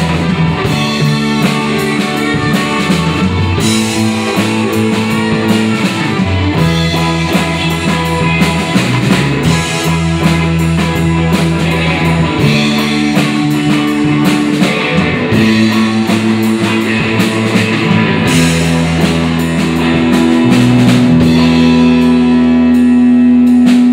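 Live rock band playing: electric guitars, bass guitar and drum kit. Over the last few seconds the band holds one long chord, a little louder.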